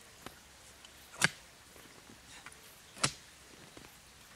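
Small spade blade chopping down into grass turf to cut it free, two sharp strikes nearly two seconds apart with a fainter one just after the start.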